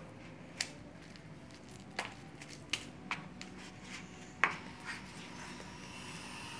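Homemade glue slime being kneaded and pulled apart by hand, sticky and clinging: a few short, sharp sticky clicks scattered through, the loudest about four and a half seconds in.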